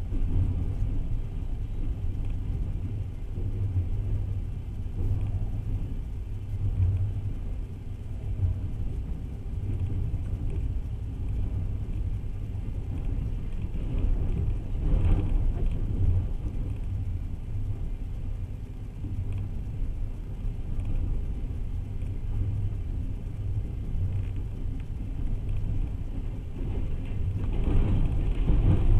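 Steady low rumble of a moving passenger train heard from inside the carriage, the running noise of wheels on rails. It swells briefly about halfway through and grows louder near the end.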